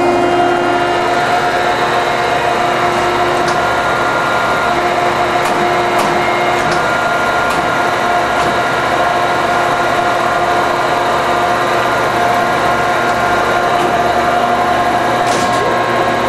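Landis 3R hydraulic cylindrical grinder running idle, its 10 HP grinding-wheel motor and hydraulic system making a loud, steady whine of several held tones, with a few faint clicks.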